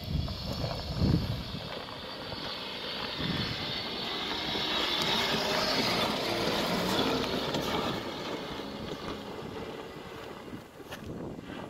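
A small four-wheel-drive SUV's engine working on a dirt off-road track, growing louder to a peak in the middle and then fading away. There are a couple of low thumps about a second in.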